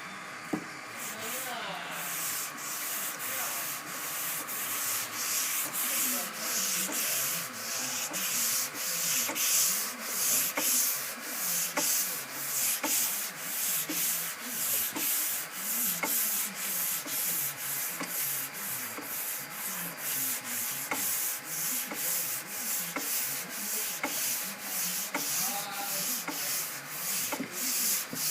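Sandpaper on a long, curved Curvecaster sanding board being pushed back and forth over a primered car body panel in a steady rhythm of rasping strokes. This is block sanding to knock down the high spots while the guide coat stays in the lows. A single sharp knock comes about half a second in.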